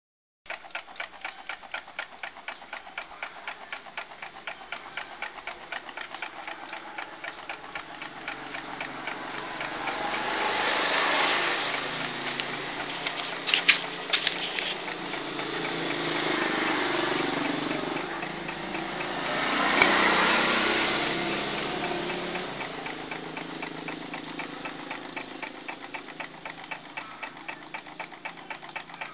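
Small homemade Stirling engine with an aluminium soft-drink-can displacer running, its mechanism ticking in a fast, even rhythm. Twice a louder rushing noise swells up and fades away, with a few sharp clicks between.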